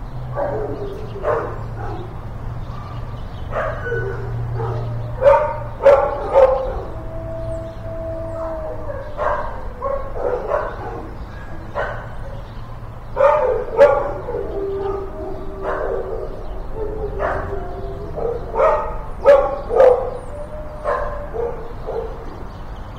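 Several kennel dogs barking and yipping, irregular and overlapping, with one longer held call about seven seconds in. A low steady hum runs underneath through the first half.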